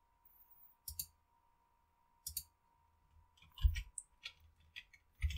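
Faint computer mouse and keyboard clicks: a few single clicks, then a short flurry about three and a half seconds in and more near the end.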